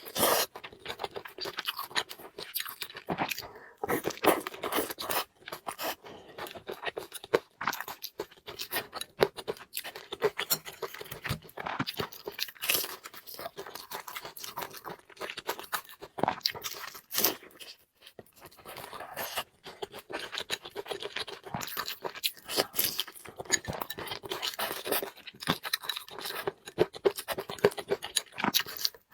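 Close-miked eating: steady chewing with many irregular wet smacks and clicks, and now and then a scrape, pausing briefly a little past halfway.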